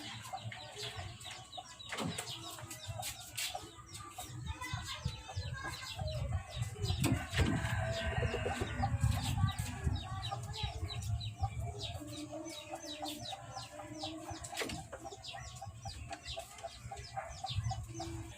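A group of young native gamefowl chicks, about 45 days old, peeping and clucking in many short, quick calls, with a noisier flurry about halfway through.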